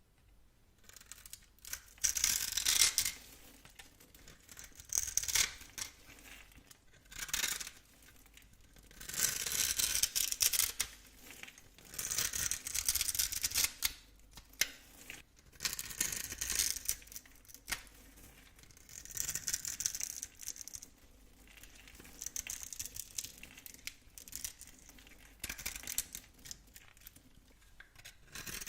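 A knife cutting through soap in repeated strokes: about ten crisp scraping cuts, each lasting a second or two, spaced every two to three seconds.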